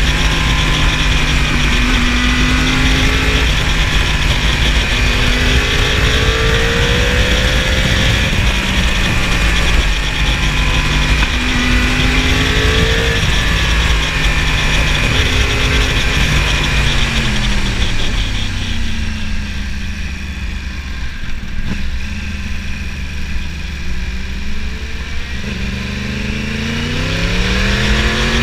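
2015 Yamaha R1's crossplane inline-four engine, heard from on the bike, its revs rising and falling as the rider accelerates and eases off through bends, with wind rushing over the microphone. About two-thirds through the revs drop away and the engine runs quieter for several seconds, then it climbs again near the end.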